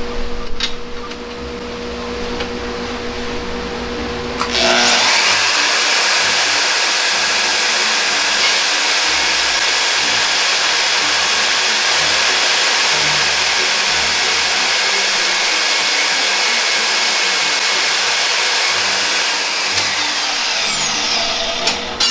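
Portable band saw running, then biting into 10-gauge aluminum angle about four and a half seconds in and cutting through it in one loud steady grinding run of about sixteen seconds, ending with a few clunks near the end.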